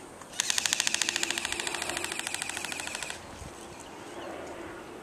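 Airsoft gun firing one long full-auto burst of rapid, evenly spaced cracks that stops about three seconds in.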